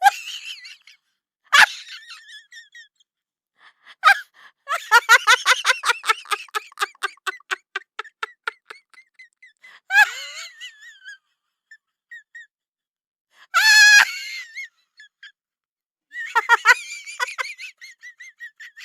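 Laughter sound effect: a voice laughing in separate outbursts, with gasps, a long run of rapid 'ha-ha-ha' pulses, and a high wavering shriek of laughter about two-thirds of the way through.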